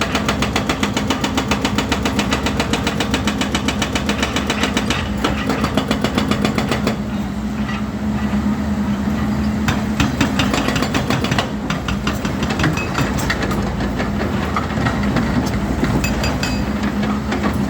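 Volvo EC210D excavator's diesel engine running steadily. For the first five seconds or so it comes with a rapid, even ticking, followed by scattered sharper clicks and clanks.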